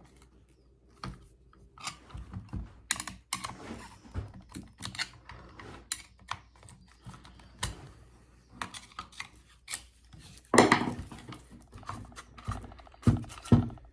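Screwdriver prying a cut wooden ring out of a hole saw bit: irregular metal clicks, taps and scrapes, with a louder scrape about ten and a half seconds in.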